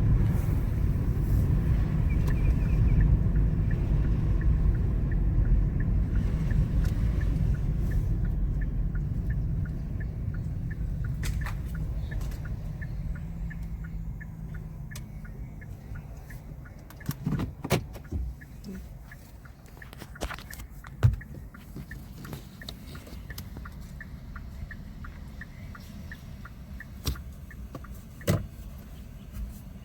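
Car engine and road rumble, loud at first and fading away over about fifteen seconds. After that comes a faint, steady ticking and a handful of sharp knocks.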